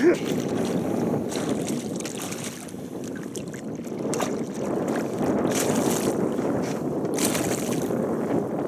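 A hooked pike splashing and thrashing at the water's surface beside an aluminium boat, in several bursts, over steady rough wind noise on the microphone.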